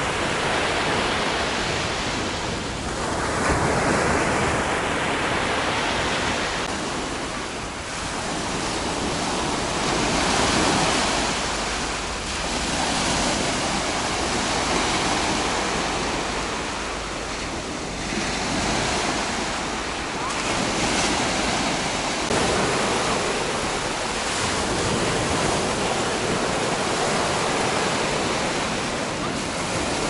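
Mediterranean sea surf breaking and washing up a sandy beach, the rush of water swelling and ebbing every few seconds.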